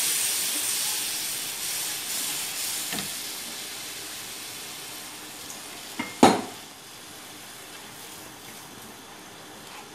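Spiced tomato-onion gravy, just thinned with water, sizzling in a hot frying pan while a spatula stirs it, the sizzle fading steadily as the liquid heats toward the boil. A sharp utensil clack on the pan a little past halfway.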